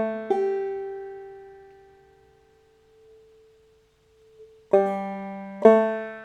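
Clawhammer banjo played open-back style: a plucked note rings out and fades away over a few seconds, a short pause follows, and then the picking starts again with two new strokes near the end.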